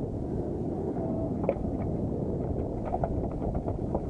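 Steady low rumble of wind buffeting the microphone and boat noise on open water, with a few faint clicks.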